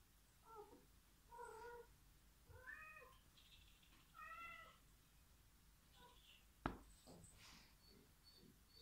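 A domestic cat meowing softly four times, short calls that rise and fall in pitch, a little over a second apart. A single sharp knock about two-thirds through is the loudest sound.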